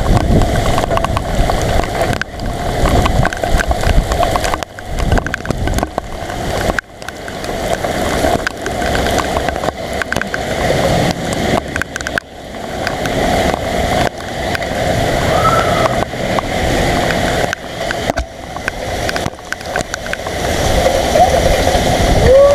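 Heavy rain pouring down with wind buffeting the microphone: a loud, steady rushing noise that keeps swelling and easing.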